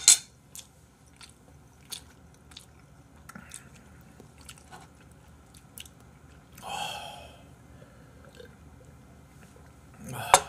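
Quiet drinking and mouth sounds from people sipping and swallowing from glasses, with scattered small clicks. A louder breathy sound comes about seven seconds in.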